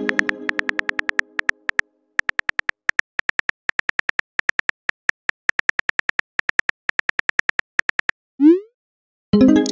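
Texting-app sound effects. A chime fades at the start, then a steady run of short pitched keyboard-typing ticks, several a second with brief pauses, plays as a message is typed. Near the end comes a short rising whoosh as the message is sent, and then another chime.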